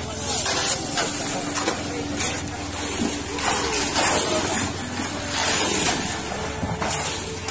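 Wet concrete being handled with buckets and shovels: repeated short scraping and splashing noises, about one or two a second, over a steady motor hum.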